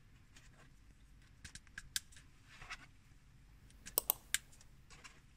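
Plastic LEGO Technic pieces clicking and tapping as they are handled and pressed together, a few faint clicks followed by a sharper cluster about four seconds in as a piece is pushed into place on the motor assembly.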